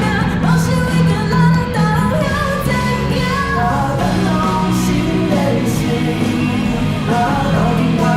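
Pop music with a singer over a steady band accompaniment.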